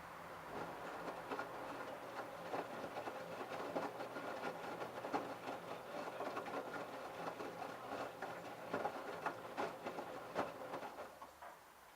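LG F1222TD direct-drive washing machine tumbling a wet load in its prewash: a steady rush of water with irregular splashes and knocks as the laundry drops in the drum, dying away near the end.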